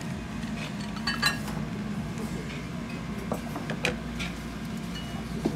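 Ceramic bowl and plate clinking a few times, with chopsticks tapping, as a serving of extra noodles is tipped into the ramen. A steady low hum of the shop runs underneath.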